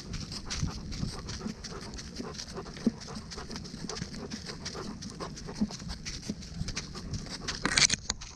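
A dog panting close to the microphone, with a quick run of footfalls and scuffs from its paws on the woodland ground. A louder scuffle comes near the end.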